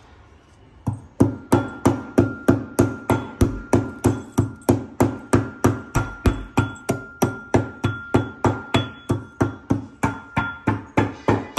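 Metal pestle pounding black peppercorns in a metal mortar: steady, evenly paced strikes about three times a second with a light metallic ring, starting about a second in.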